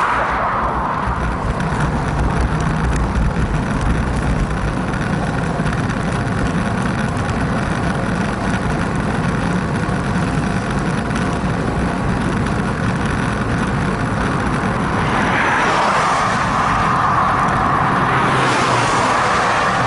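Steady wind buffeting and road noise from a bicycle moving along a highway shoulder, heard through a handlebar-mounted camera's microphone, with a low rumble throughout. About three-quarters of the way through, passing motor traffic swells louder and brighter, then eases.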